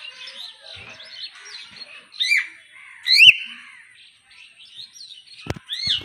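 Hill myna giving two loud, rising whistled calls about two and three seconds in, and another near the end, over steady background twittering. A couple of sharp knocks come just before the end.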